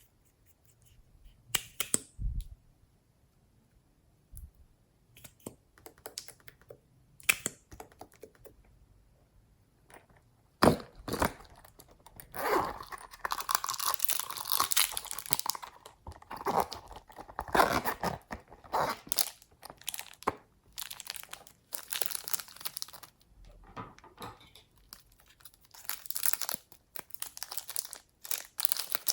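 Slime being handled and mixed by hand: a few scattered sticky clicks at first, then a dense run of crackling and popping from about a third of the way in.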